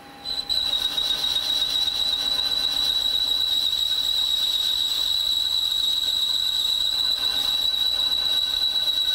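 Brazed carbide boring bar chattering in a CNC lathe boring cut in aluminium: a steady high-pitched squeal that starts just after the beginning and holds at one pitch. The chatter comes from a dull, not very sharp bar lacking rigidity.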